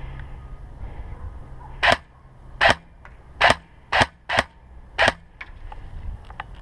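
Airsoft gun firing six sharp shots in semi-automatic, unevenly spaced, followed by a few faint ticks near the end.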